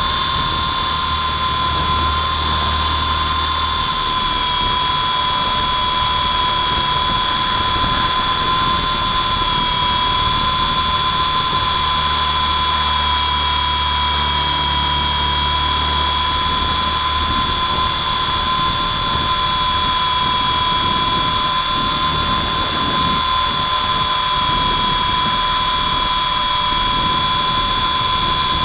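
WLToys V912 RC helicopter's electric motor and rotors running in hover, heard close up from a camera on the helicopter itself: a steady high whine whose pitch dips slightly now and then, with a low rumble that comes and goes.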